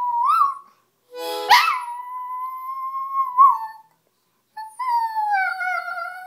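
A dog howling along with a harmonica: long held notes broken by short pauses, the last one wavering and sliding downward near the end.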